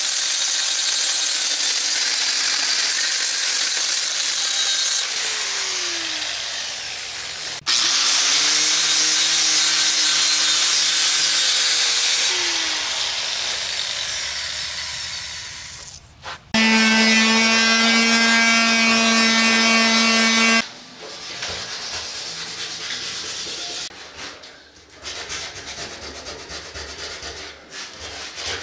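A power saw cutting through a cultured-marble (fiberglass) countertop: long stretches of loud grinding cutting noise with brief pauses. Near the middle the motor runs free with a steady whine for about four seconds. It is followed by quieter, uneven rubbing and scraping of the cut material.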